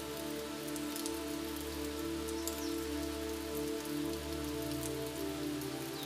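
Steady rain falling, with single drops ticking close by. Underneath runs a low drone of several held tones, and a brief high downward chirp sounds about halfway through.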